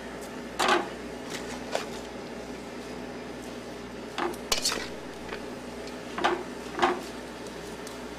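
A metal utensil knocking and clinking against a stainless steel pan while sliced onions are stirred in butter. There are about seven short, uneven clinks over a steady background hum.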